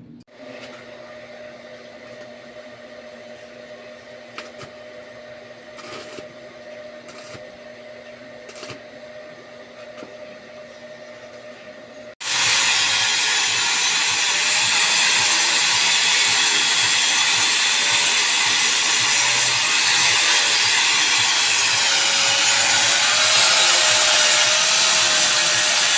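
A quiet steady machine hum, then about halfway a loud power tool starts up on metal and runs steadily with a faint wavering whine.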